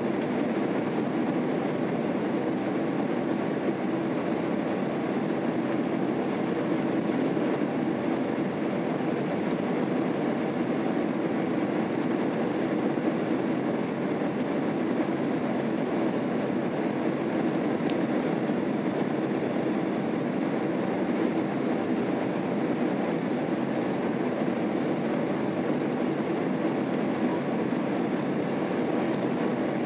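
Steady engine and airflow noise inside the cabin of a Boeing 767-300 climbing after take-off, heard from a window seat over the wing.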